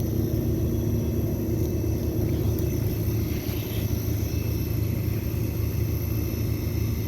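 2014 American Standard central air conditioner condenser running with a steady low hum from its compressor and fan. The unit is low on refrigerant charge from a leak and is not cooling.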